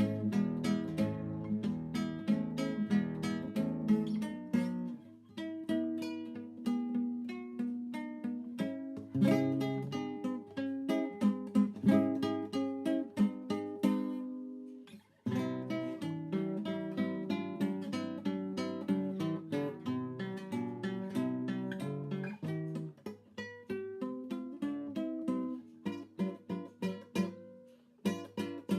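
Acoustic guitar music, plucked and strummed, with a brief pause about halfway through.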